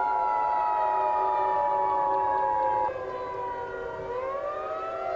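Civil-defense tornado siren wailing: its pitch falls slowly, bottoms out about four seconds in and starts rising again. Under it a steady two-note alert tone plays and cuts off about three seconds in.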